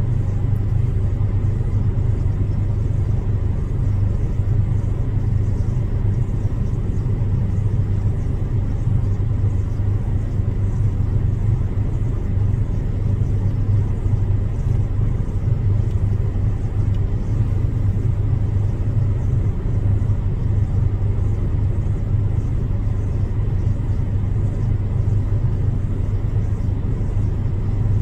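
Steady low rumble of an idling car engine, unchanging throughout.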